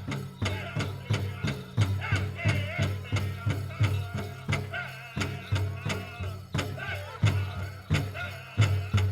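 Powwow drum group: several singers singing in high voices over a large shared drum struck together in a steady beat, about two and a half beats a second.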